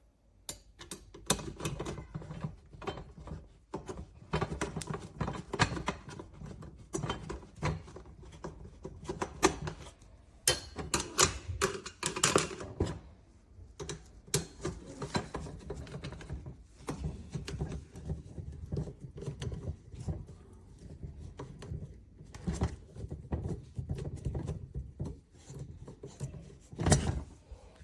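Irregular clicks, knocks and light rattles of a folding camping table set being handled, with one louder knock near the end.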